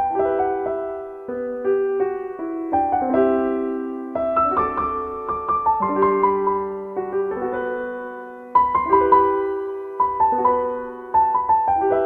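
Background piano music: a calm melody of struck notes that ring and fade over held chords.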